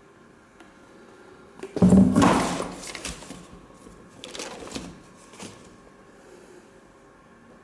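Used shoes put into a cardboard box: a loud thump and rustle about two seconds in as a pair lands in the box, then softer rustling of shoes against the cardboard and a light knock about five seconds in.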